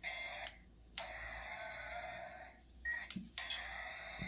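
Battery-powered dinosaur toy pistol running its mist sprayer: a steady hiss with a thin high whine, cutting out briefly twice, with a few plastic clicks of the trigger a little after three seconds in.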